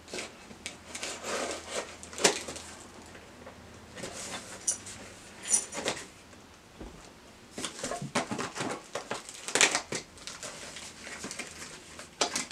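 Scissors snipping into a package, with irregular clicks and rustling as the packaging and a small cardboard box are handled and pulled open.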